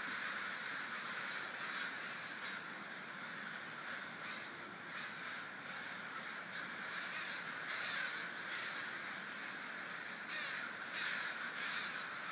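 A large flock of American crows flying over toward their evening roost, many birds cawing at once in a dense, continuous chorus. A few louder, nearer caws stand out about eight seconds in and again around ten to eleven seconds in.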